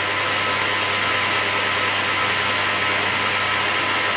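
Lathe running steadily, spinning a repaired pool cue butt so its joint can be checked for running true. It makes an even, loud whir with a low hum under it.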